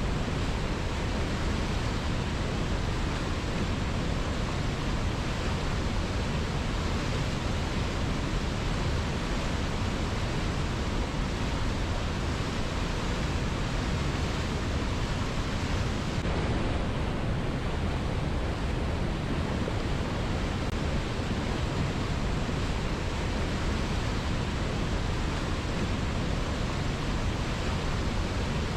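A river flowing strongly: a steady, full rushing of water with no letup.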